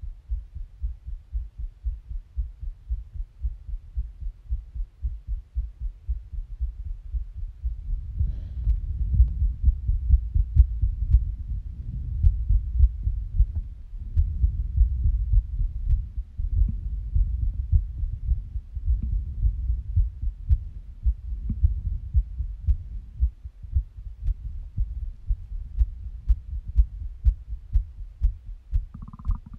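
A person's heartbeat during a held breath: low, muffled thumps about twice a second, growing louder and denser from about eight seconds in.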